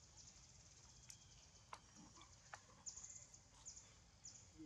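Near silence: faint outdoor ambience with a few soft clicks and several short, high-pitched chirps toward the end.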